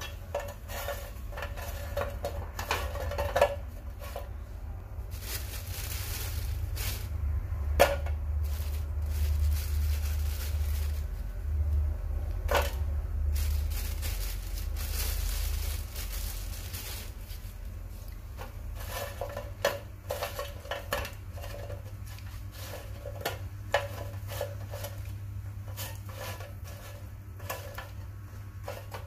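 Sweet potato wedges being placed and turned by hand in a shallow nonstick pan: scattered light taps and clicks of the pieces against the pan, with a few sharper knocks, over a steady low hum.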